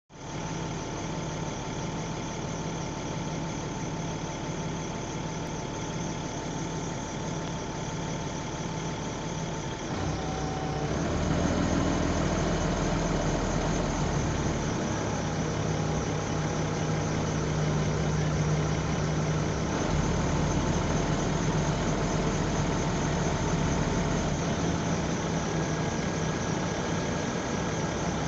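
1991–92 bus's diesel engine heard from the back seat inside the cabin, idling steadily. About ten seconds in it grows louder and deeper as the bus pulls away, and the engine note then shifts in steps.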